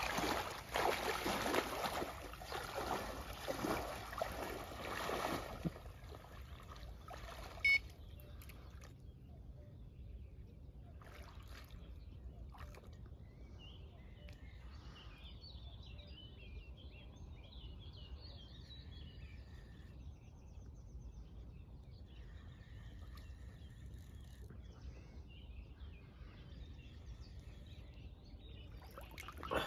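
Water splashing as a person wades into shallow lake water in chest waders, irregular and loud for about the first six seconds. Then quiet lake-shore ambience with faint birdsong.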